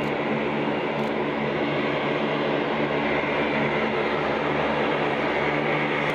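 Lockheed C-130J Hercules taxiing, its four Rolls-Royce AE 2100 turboprops and propellers making a steady drone with a low, even hum of several tones.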